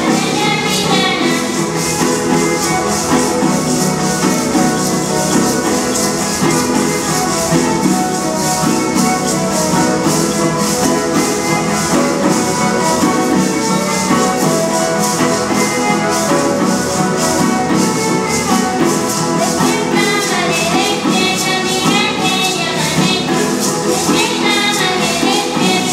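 Teenek dance music: a violin and a guitar play a steady tune while rattles are shaken in a quick, even rhythm. Voices sing along near the end.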